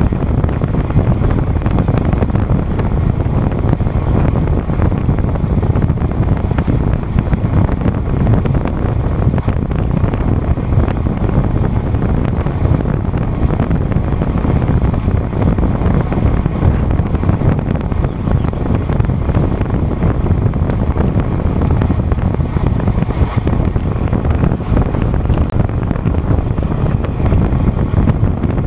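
Steady, loud wind rushing over the microphone of a camera riding along on a road bicycle at time-trial speed.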